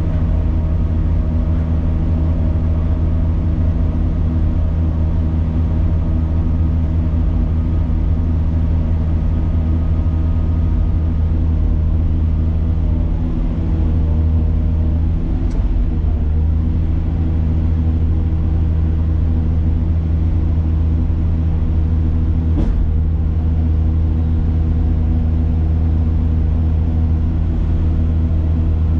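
A heavy machine's engine running steadily with a deep, even hum. Two short sharp clicks are heard, about halfway through and again later.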